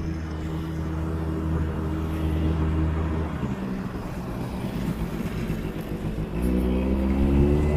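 Small quad bike (ATV) engine running at a steady pace. The note weakens about three seconds in, then a little past six seconds it comes back louder and rises slightly as the engine is revved.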